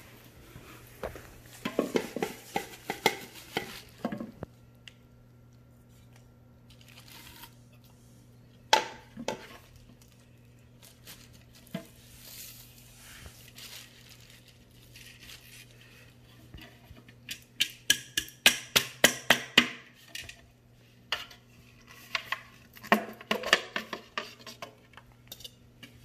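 Plastic clicks and knocks from an upright vacuum's clear dust cup and blue filter tube being pulled apart and emptied of dog hair into a plastic trash bag. The clicks come in several quick runs, with the busiest run a little past the middle.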